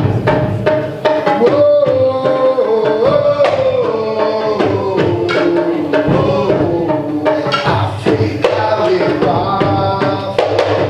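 Music with hand drums beating a steady rhythm and a melodic line over it.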